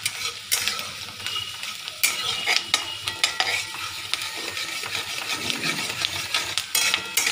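Chopped onions sizzling in hot mustard oil in a kadhai (Indian wok), stirred by a spatula that scrapes and clicks against the pan again and again over a steady frying hiss.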